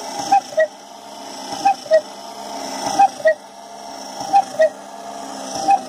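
Cuckoo bellows in a homemade electric cuckoo clock, driven by a 12 V DC motor through wooden flywheels, calling "cuckoo" over and over: a higher note, then a lower one, about every 1.3 seconds. A steady mechanical whir runs between the calls. No regulator yet governs how often or how long it calls, so it repeats without pause.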